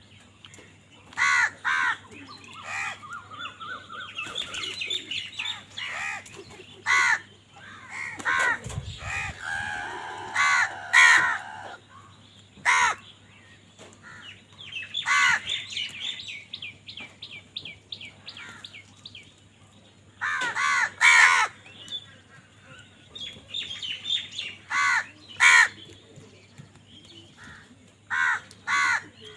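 Crows cawing repeatedly: short, harsh calls, singly and in quick pairs, with a run of rapid chattering notes about midway.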